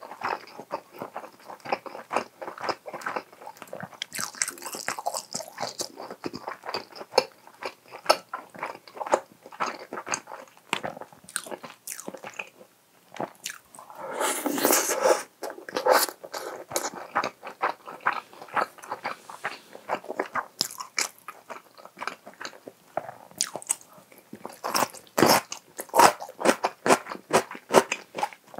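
Close-miked chewing of soft rice, chicken and egg: many irregular wet mouth clicks, with a longer breathy rush about halfway through.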